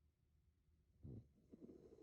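A woman snoring faintly in her sleep: a short burst about a second in, then a longer snore near the end.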